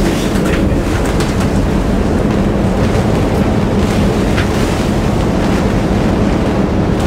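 Cyclone-force wind making a constant roar around a moored sailboat, heard from inside its canvas and vinyl cockpit enclosure, with a steady low hum running underneath.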